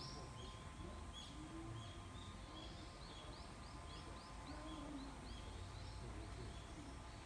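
Birds calling in tall forest trees: short chirps repeated about once a second, with a quick run of falling notes a few times a second around the middle, over a low steady background rumble.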